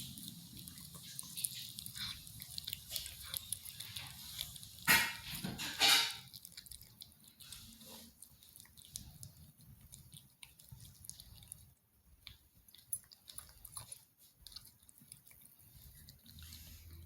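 A husky barks twice in quick succession about five seconds in, the loudest sounds here. Around it, faint small clicks and chewing of a cat eating raw chicken meat.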